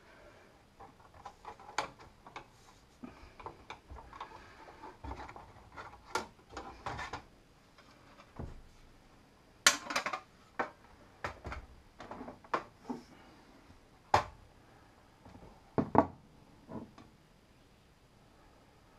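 Screwdriver clicks and small metal scrapes and clatter as the screws come out of the metal top cover of a Kenwood TS-700SP transceiver. The cover is then lifted off and handled, with a few sharper knocks about ten, fourteen and sixteen seconds in.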